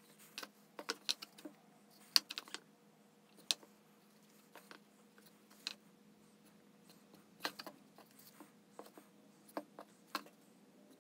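Scattered light clicks and taps of paper mixing cups being handled by gloved hands while epoxy resin is poured into a silicone mold, the sharpest tap about two seconds in. A faint steady hum runs underneath.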